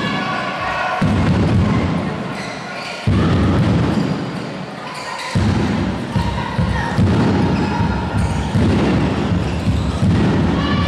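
Handball game in a sports hall: the ball bouncing on the hall floor, with players' voices and calls. Under it, a low rumble cuts in and out abruptly several times.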